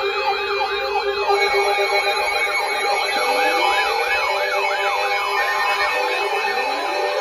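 Layered electronic sirens: a fast yelp sweeping up and down a little over twice a second over steady alarm tones, with a slower rising wail coming in around the middle and again near the end.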